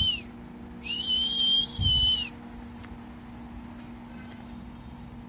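A whistle blown as a recall signal to a golden eagle: one long, steady, shrill blast about a second in, after the tail of an earlier blast right at the start.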